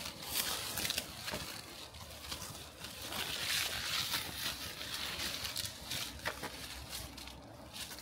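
Footsteps on a forest trail: irregular crunches and rustles underfoot, louder in the middle.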